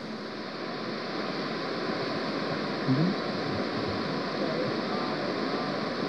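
Steady rushing of water pouring down a stepped stone cascade, with a brief voice sound about three seconds in.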